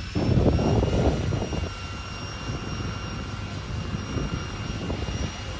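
A steady engine drone with a constant high whine over a low rumble, louder in the first second.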